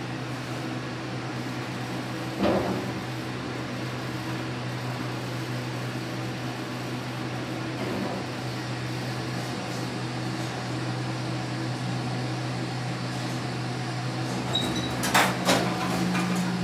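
Vintage Otis traction elevator car riding with a steady hum, with a single thump about two and a half seconds in. Near the end a short high beep sounds, then a quick run of knocks and clatter as the car stops and its doors slide open.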